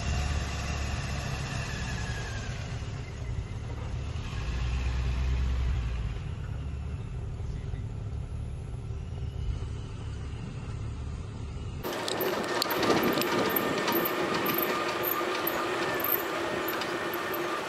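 Safari jeep's engine rumbling low and steady. About twelve seconds in it gives way abruptly to the louder noise of the open jeep driving along a dirt track, with engine and wind.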